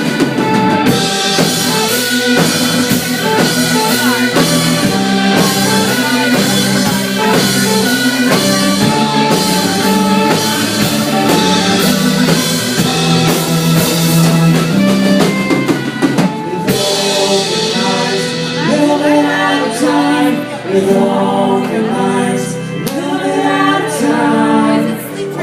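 Band music with a drum kit, bass and chords playing through an instrumental stretch of a song. The drumming thins out about seventeen seconds in and held chords come forward.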